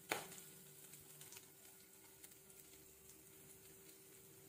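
Near silence: faint room tone with a steady low hum, after a single short click just as it begins.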